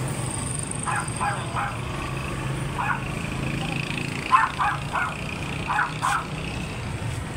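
Small dog yapping: about nine short sharp barks, mostly in quick groups of two or three, over a steady low background hum.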